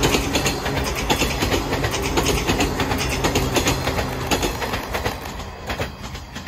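Six-car JNR-type 115 series electric train passing close by, its wheels clicking rhythmically over the rail joints, fading as it pulls away near the end.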